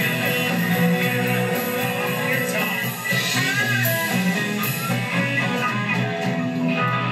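Live band playing, with electric guitars out front over keyboard and drums, heard through a thin recording with the deep bass missing.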